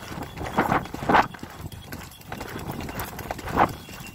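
Horse galloping: hoofbeats on a dirt track, with louder bursts about a second in and again about three and a half seconds in.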